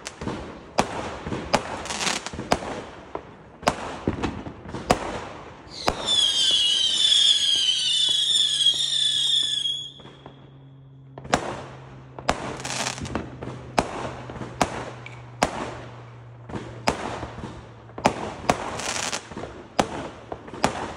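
Fireworks going off: a run of sharp bangs and crackles, some closer and some further away. About six seconds in, a loud, shrill, warbling whistle lasts about four seconds, typical of a whistling or screaming firework. After a short lull the bangs resume.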